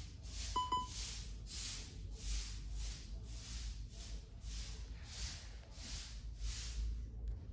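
A broom sweeping the ground in steady strokes, a scratchy swish about three times every two seconds. About half a second in there is a brief high squeak.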